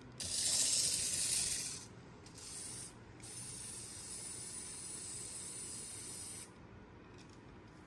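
Tiny electric motors and gears of a micro RC toy forklift whirring in bursts as it is driven: a loud burst of about a second and a half, a short one, then a steadier run of about three seconds with a thin high whine that cuts off suddenly.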